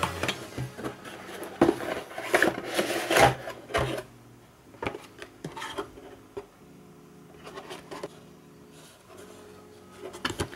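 Cardboard packaging of a Samsung DeX Station handled and slid apart: rubbing and scraping of rough cardboard with clicks and taps, busiest in the first few seconds, then quieter scattered knocks.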